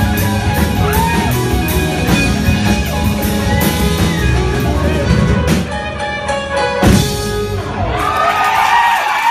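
Live rock band of piano, electric guitar, bass and drum kit playing the closing bars of a song, breaking into a few separate accented hits and ending on one final hit about seven seconds in. Audience cheering and whooping starts right after.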